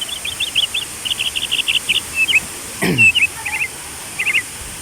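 High, rapid chirping in repeated clusters of four to six short notes over the steady hiss of rushing water. About three seconds in, a single sound slides sharply down in pitch.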